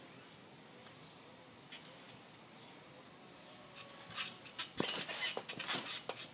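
Trampoline being bounced on: faint at first, then from about four seconds in a quick run of sharp knocks and clicks from the mat and springs as a back handspring is thrown and landed.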